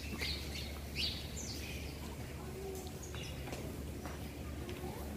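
Small birds chirping: quick, high, falling chirps in the first second and a half and again about three seconds in, over a steady low hum.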